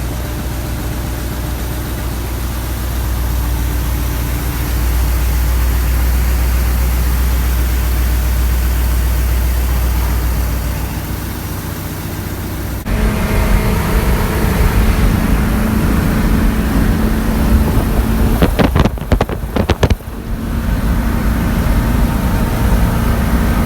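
Farm machinery engine running, growing louder a few seconds in. About thirteen seconds in the sound changes abruptly to a different engine note with a steady hum, with a brief run of sharp clicks near the end.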